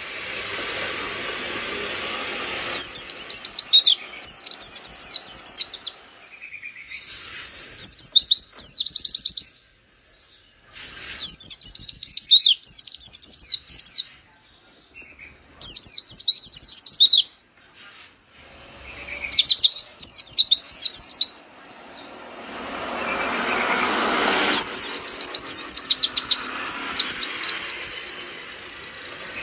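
Caged white-eye (pleci) singing vigorously in repeated bursts of fast, high, descending notes, with short pauses between phrases. A rushing background noise swells under the song for a few seconds after the middle.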